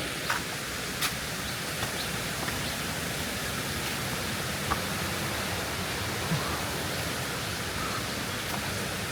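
Steady rush of flowing water, with a few light clicks.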